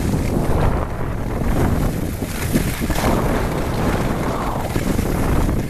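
Wind buffeting the microphone of a camera carried by a moving skier, with the hiss and scrape of skis sliding over snow.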